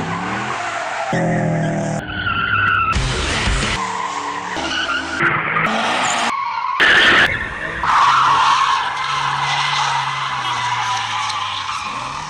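Cars skidding in a string of short clips that cut off abruptly every second or so, with tyre squeal and running engines. From about eight seconds in, one long tyre squeal over a steady engine.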